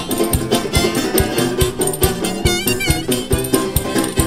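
Acoustic folk string band playing an instrumental passage: strummed and picked guitar with harmonica, over a steady beat of clicking hand percussion about three strokes a second. About two and a half seconds in, a high, wavering melody line stands out.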